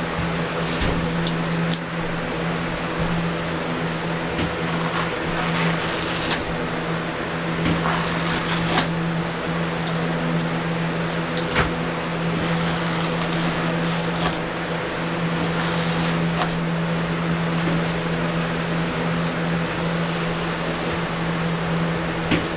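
A steady mechanical hum with a low tone, with scattered light clicks and knocks over it.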